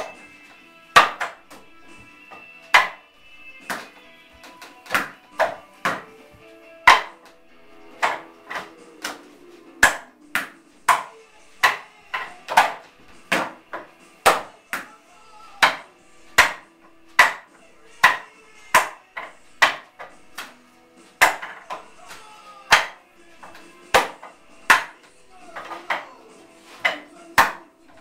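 Sharp wooden knocks and slaps from hands and forearms striking the arms of a Wing Chun wooden dummy (mook jong). The hits come in an uneven stream of about one or two a second, some in quick pairs.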